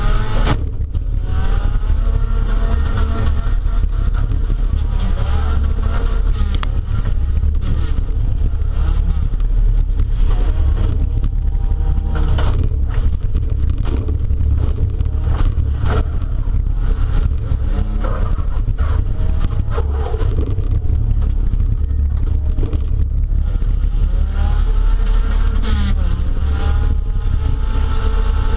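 A speedway derby car's engine heard from inside the car, its pitch rising and falling over and over as it is driven hard, over a heavy low rumble. A few sharp bangs and rattles come through, near the start and again about 12, 16 and 20 seconds in.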